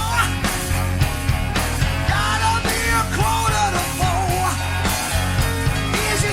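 Rock band music: a song with a steady drum beat and a melody line sliding over it.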